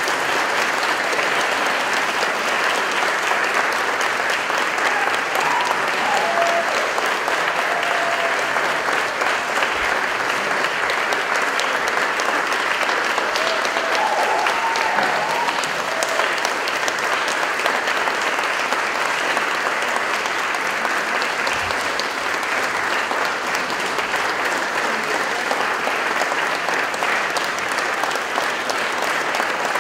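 Audience applauding steadily after a vocal recital, with a few short voice calls rising over the clapping twice along the way.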